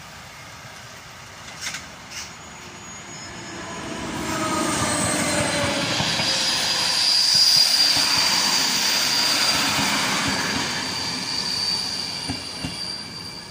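Electric locomotive hauling a passenger train past at speed. The rumble of wheels on rail builds from about four seconds in, is loudest around the middle with a steady high whine over it, and fades as the coaches go by. A tone drops in pitch as the locomotive passes.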